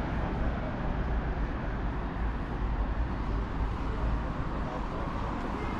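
Urban street ambience: a steady low hum of traffic with indistinct chatter of people mixed in.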